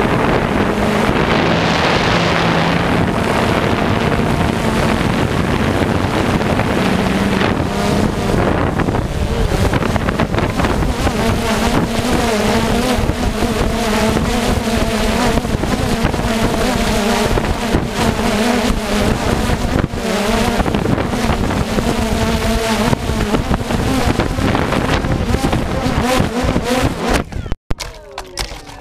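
Quadcopter drone's motors and propellers whirring steadily with wind on the microphone. Near the end the whirring cuts off abruptly as the drone crashes to the ground.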